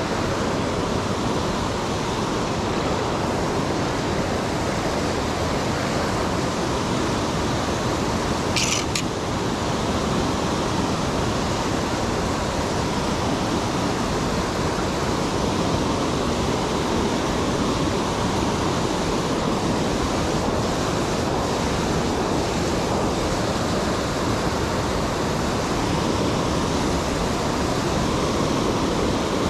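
Steady rush of a mountain trout stream's rapids and small cascades pouring over boulders. A brief high-pitched sound comes about eight seconds in.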